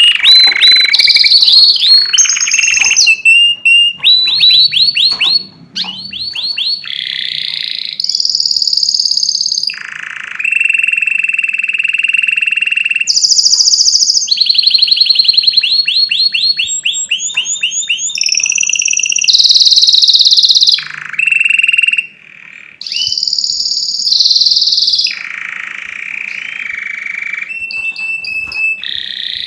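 Domestic canary singing: a loud, continuous song of trills and rolls, each a fast run of one repeated note. It switches every second or two between low steady rolls and higher, faster whistled phrases.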